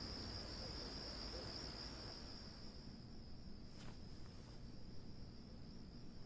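Crickets chirring steadily and faintly, with a single soft click a little past the middle.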